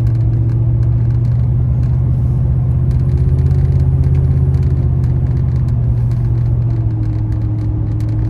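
Steady low drone of a car driving, heard from inside the cabin, with a faint tone in it that rises slightly a few seconds in and settles back near the end.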